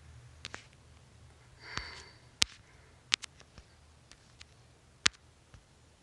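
Scattered sharp clicks, about ten in all, the loudest about two and a half and five seconds in, with a short sniff just before two seconds in.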